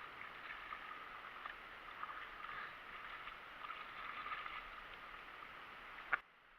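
Faint water sloshing and trickling with small splashes and ticks. A sharp click comes just after six seconds, and then the sound cuts off abruptly.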